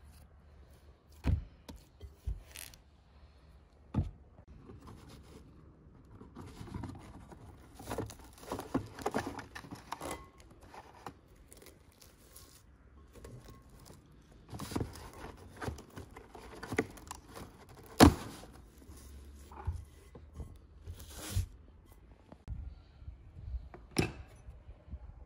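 Plastic cling film pulled off its roll, torn off and stretched crinkling over a glass bowl, with several sharp knocks of the bowl and box against the table, the loudest about two-thirds of the way through.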